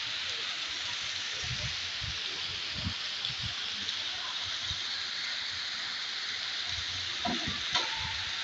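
Heavy rain falling steadily onto a flooded street, with a stream of water pouring down and splashing into a puddle.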